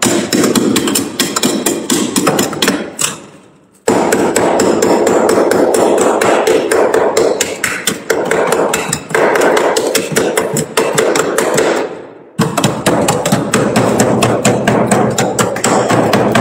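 A metal hand tool chipping and scraping thick, packed frost off freezer shelves. It is a fast, dense run of sharp knocks and scrapes, with two short breaks, one a little before 4 seconds in and one about 12 seconds in.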